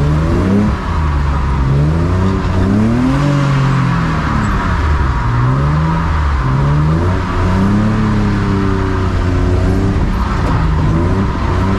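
BMW E36 drift car's engine being driven hard, its revs rising and falling again and again, every second or two.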